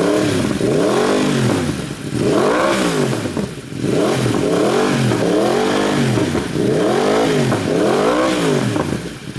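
Yamaha YZF-R1 crossplane inline-four revved repeatedly in neutral through an Akrapovic slip-on exhaust with no baffle and no valve: about seven throttle blips, each rising in pitch and falling back.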